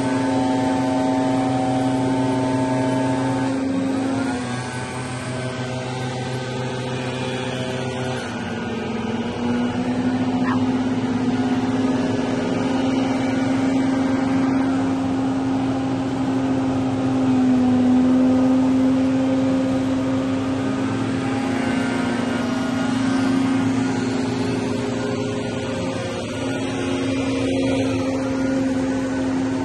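Several petrol leaf blowers running steadily, their engines droning together at slightly different pitches that shift a little as the workers move.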